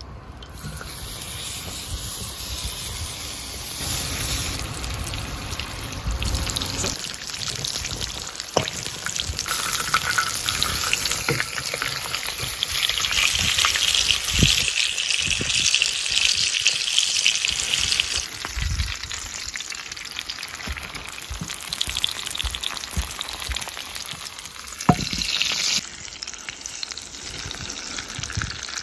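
Bone-in chicken sizzling as it cooks over a campfire, a steady frying hiss that grows louder toward the middle and eases off later, with a few sharp pops.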